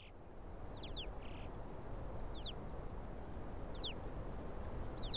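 Alpine choughs calling: four short, high, falling whistles about a second and a half apart, over a steady low rushing background.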